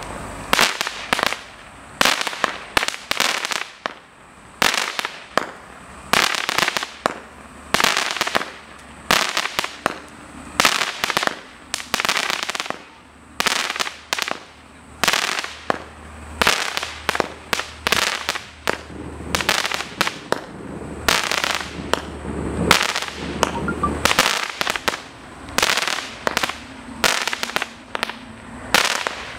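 Multi-shot consumer fireworks cake (MM2133 Ammo Box) firing shot after shot, about one or two sharp bangs a second, each with a short noisy tail.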